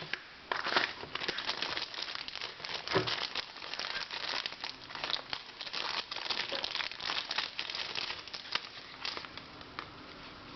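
Packaging being handled during an unboxing, crinkling and crackling in dense irregular bursts that die down about nine seconds in.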